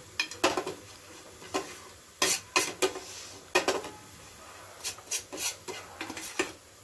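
Metal spoon scraping and clinking against a metal pan as flour is stirred and dry-roasted, in about a dozen irregular short strokes.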